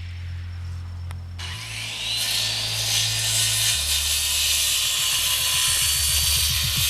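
An electric power tool spins up about a second and a half in, its motor whine rising to a steady pitch under a loud hiss of cutting or grinding, then winding down near the end. Background music with a deep bass line plays under it.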